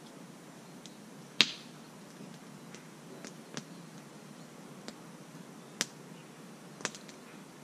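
A few scattered sharp clicks over a faint steady hiss; the loudest comes about one and a half seconds in.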